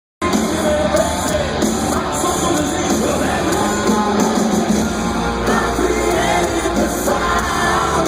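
Live hard rock band playing loud through an arena sound system, with pitched vocal or guitar lines over heavy bass and drums. The sound cuts in abruptly just after the start.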